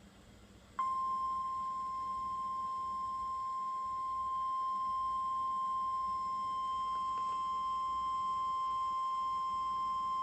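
NOAA Weather Radio 1050 Hz warning alert tone: a single steady high-pitched tone that starts about a second in and holds without change. It signals that a severe thunderstorm warning message is about to be broadcast.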